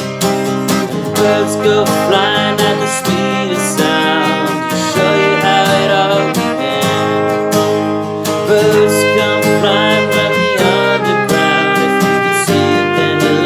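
A trumpet with a straight mute playing a melody line of held notes over a strummed acoustic guitar.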